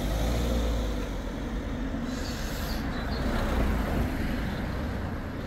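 Motor vehicles passing on the road: a low engine rumble with tyre noise, swelling just after the start and again near four seconds in. A brief hiss comes in about two seconds in.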